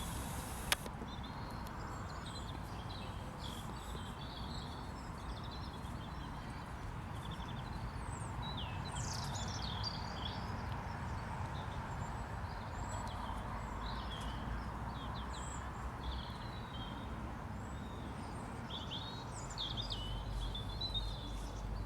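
Small birds chirping and singing over a steady outdoor background rush, with one sharp click about a second in.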